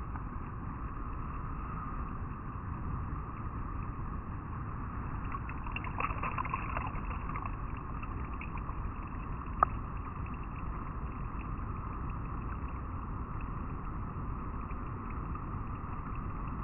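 River water flowing steadily over rocks, a constant rushing sound, with a brief patch of louder splashing about six seconds in and a single sharp click near the ten-second mark.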